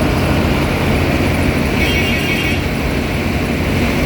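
John Deere rice combine harvester running, a steady engine and machinery drone with a low hum. A short higher-pitched whine sounds about two seconds in.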